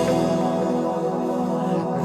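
Slow worship music: a steady held instrumental chord with no singing.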